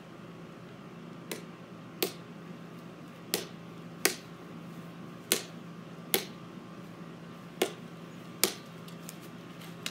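A hollow plastic wiffle ball struck again and again by a plastic paddle: about nine sharp taps. The gaps alternate short and long, as the hits alternate low and high.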